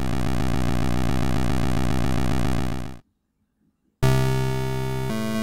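Synthesized, retro video-game style engine drone for a cartoon seaplane: a rapid, even pulsing buzz that holds steady and cuts off abruptly about three seconds in. After a second of silence, synthesizer music with sustained keyboard notes begins.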